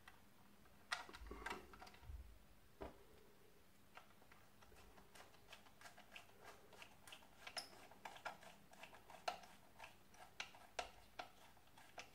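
Faint, irregular clicks and ticks of a small screwdriver turning a screw into the plastic body of a Lima HST model power car, with a few louder knocks as the model is handled between about one and three seconds in.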